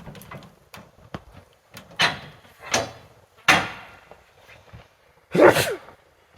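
A series of sharp knocks and clanks, four loud ones roughly a second apart, the last one longer with a short falling ring.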